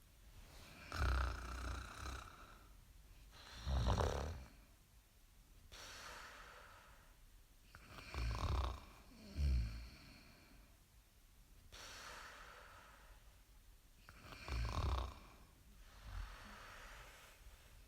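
A person snoring in slow sleep breaths: deep, low snores come every few seconds, with quieter breathing between them.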